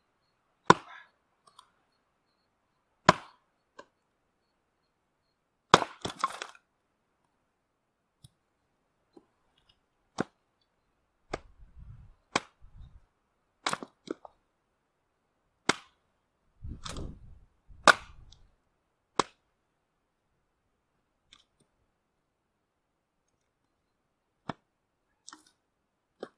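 Axe splitting birch firewood on a chopping block: about a dozen sharp cracking strikes at irregular intervals, some followed by duller thuds of split pieces landing, then a few light knocks of wood being gathered near the end. The birch is slightly rotted from lying out and splits easily.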